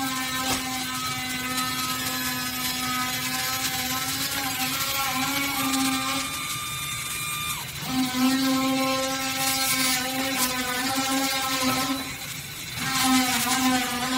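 Stryker XPS powered ambulance stretcher's electric motor whining steadily as the stretcher is powered out of the ambulance and its legs extend. The whine stops briefly twice, once a little past halfway and once near the end, then starts again.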